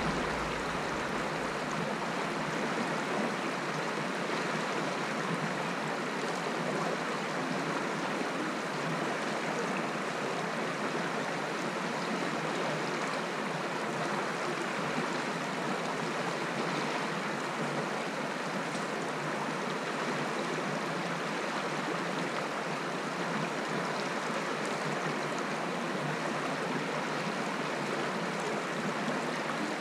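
Shallow, stony stream flowing and rippling over rocks close to the microphone, a steady rushing of water.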